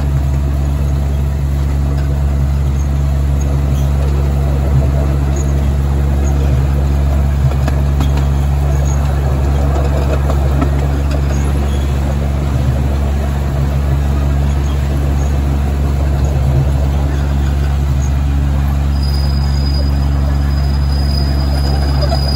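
Ride-on miniature park train running along its track, its locomotive giving a steady low drone with the rumble of the cars on the rails. A thin, high steady whine joins near the end.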